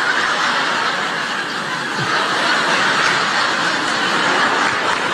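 Large live audience laughing, a steady wash of many voices.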